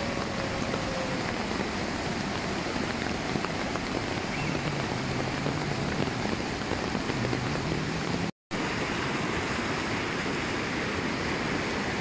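Steady rush of whitewater rapids on a rain-swollen river. The sound drops out for a split second about eight seconds in.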